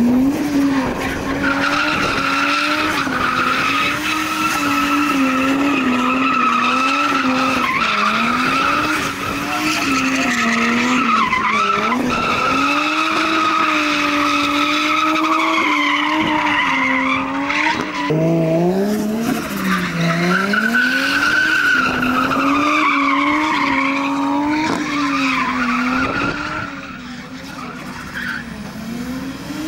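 A car drifting, its engine held high in the revs and rising and falling as the throttle is worked, over a continuous high tyre squeal. The squeal and engine ease off briefly near the end.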